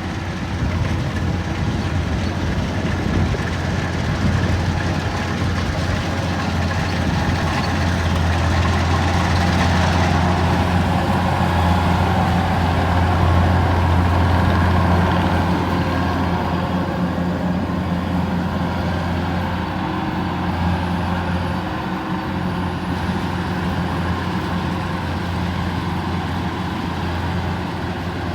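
Kubota rice combine harvester's diesel engine and machinery running steadily under load while cutting rice, with a deep steady hum that swells a little in the middle and eases slightly later on.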